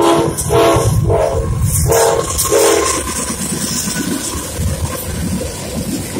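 CSX GE AC44CW diesel locomotives sounding the horn in about five short blasts over the first three seconds, then the locomotives and freight cars running past close by at speed, with steel wheels clattering over the rail.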